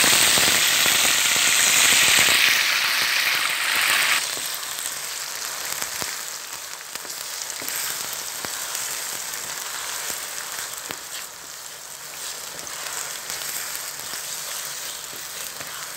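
Soaked, wet semolina hitting hot oil and caramelised sugar syrup in a pan, sizzling loudly as the water flashes to steam. About four seconds in the sizzle drops to a quieter, steady crackle while the mixture is stirred.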